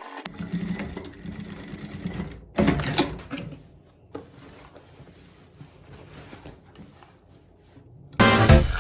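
Sewing machine running and stitching steadily for about three seconds, then much fainter for the rest.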